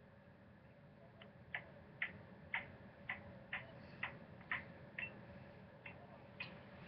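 Tortoise eating tomato: faint, clicky bites and chomps of its beak, about two a second, starting about a second in and slightly uneven in pace.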